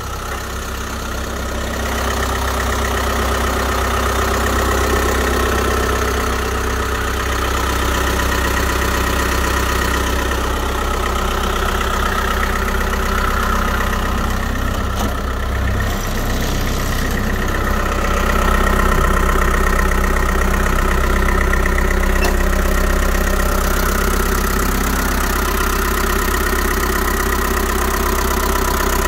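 Toyota Land Cruiser BJ43's four-cylinder diesel engine idling steadily.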